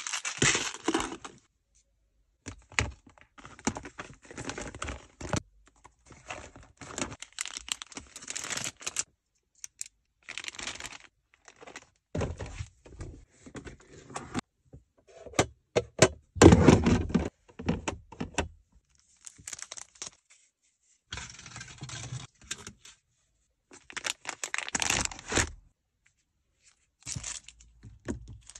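Small objects being handled and packed into a car's centre console: plastic containers and cables rattling, clicking and rustling in short bursts with brief silent gaps between them. The loudest is a knock-and-rattle just past halfway.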